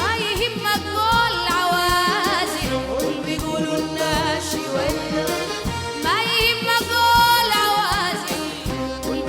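Arabic folk-style song with a steady beat, its ornamented melody line rising and bending in two phrases.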